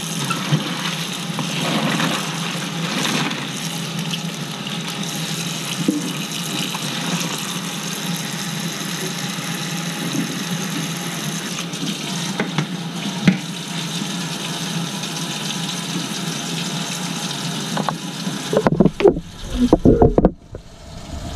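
Kitchen faucet running steadily into a stainless steel sink, water splashing over chopped cabbage being rinsed in a plastic bowl. Near the end, a few loud bumps and knocks.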